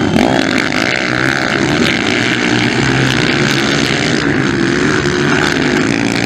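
Several motocross bikes' engines running hard in a race, pitch rising and falling as the riders work the throttle.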